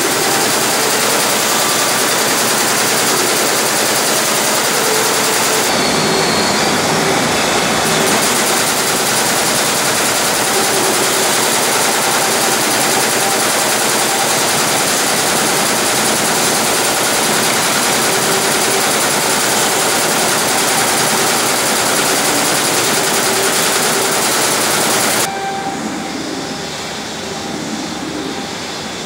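Multi-head computerised embroidery machine running, its row of needle heads stitching together in a loud, steady mechanical racket. About 25 seconds in the sound drops and loses its high end.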